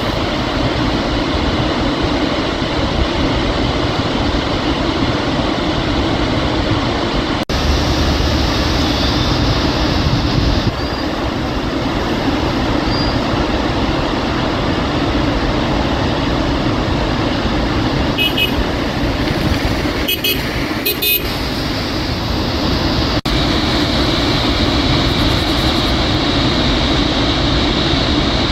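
Floodwater rushing in a loud, steady torrent from a dam's raised spillway crest gates and crashing into the river below, the gates opened to let out a heavy flood inflow.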